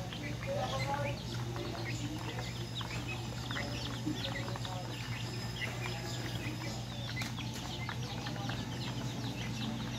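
Young domestic chickens peeping over and over in short, high chirps, with a few lower clucking calls about a second in and a steady low hum underneath.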